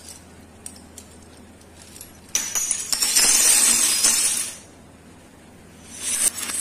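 Metal crown bottle caps poured from cupped hands onto a tabletop: a dense jingling clatter that starts a little over two seconds in and lasts about two seconds. A second clatter of caps starts near the end.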